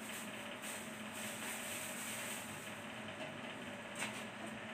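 A steady faint hum and hiss of background noise, with one light click about four seconds in from the socket wrench and holder tool on the scooter's CVT drive-pulley nut as it is slowly tightened.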